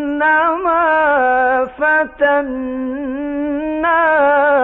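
A man chanting the Quran in a melodic, drawn-out style, holding long notes with wavering ornaments and stopping briefly twice for breath.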